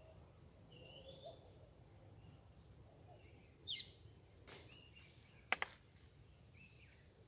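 Birds chirping faintly over a quiet background. A pair of sharp clicks comes about five and a half seconds in.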